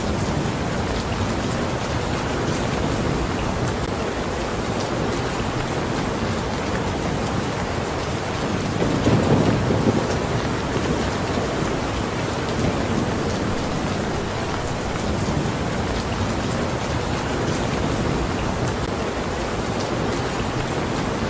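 Steady rain falling, an even hiss of drops. A brief louder low rumble comes about nine seconds in.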